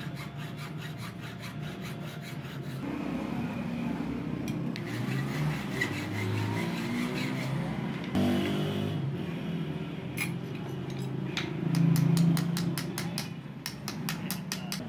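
Hand file rasping back and forth on a knife blade at a steel anvil block. Near the end this gives way to a quick run of light hammer taps on the work.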